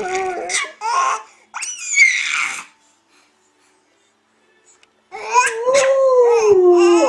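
A baby's voice babbling and squealing, then a short silence, then one long drawn-out wailing cry whose pitch slowly falls.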